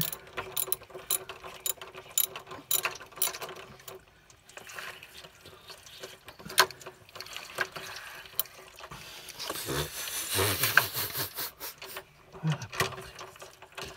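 Small socket ratchet clicking in quick runs as screws are driven at an electric water heater's element port. Near the end a short rush of water noise.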